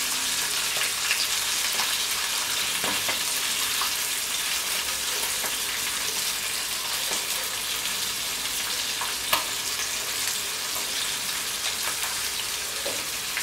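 Fresh anchovies frying in hot olive oil in a frying pan: a steady sizzle with scattered small crackles, and one sharper click about nine seconds in.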